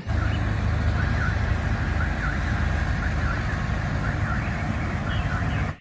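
Diesel engine of a concrete mixer truck running as the truck moves slowly: a steady low rumble, with faint repeated high chirps above it.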